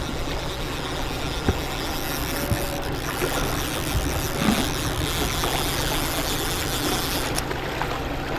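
Outboard motor running steadily at trolling speed, a low even hum, with water churning in its prop wash and a few small knocks.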